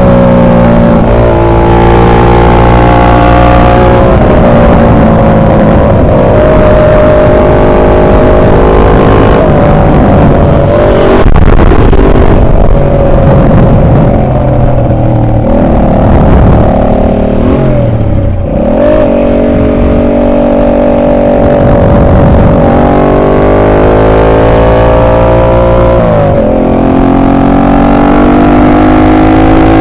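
Motorcycle engine heard from on board, loud, its pitch repeatedly climbing under acceleration and falling back between climbs.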